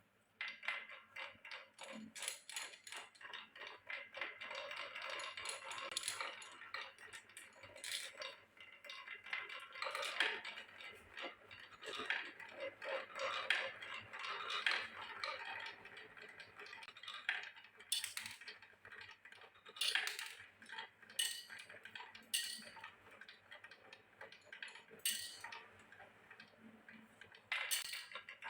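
Many glass marbles rolling down a rain-gutter and wooden-rail marble run, clicking and rattling against the track and each other. The sound starts suddenly and is a dense rattle at first, then thins out to scattered sharp clicks in the second half.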